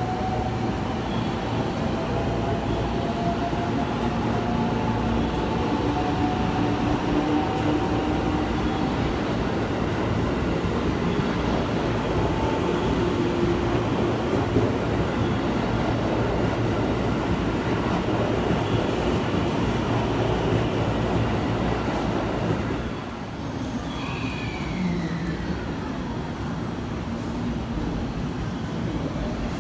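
Electric commuter train running along a station platform, with a steady running noise and a faint whine that rises slightly in pitch. About 23 s in the sound cuts to a quieter scene: a JR West 223 series electric train arriving, its whine falling in pitch as it slows.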